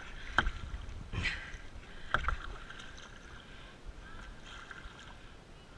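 Kayak paddle strokes dipping and splashing in calm river water, three sharp splashes in the first two and a half seconds, then softer water sounds.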